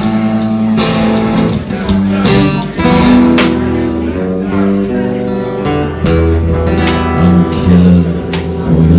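Live music: an acoustic guitar strummed over drums, with frequent sharp cymbal hits and a voice holding long sung notes.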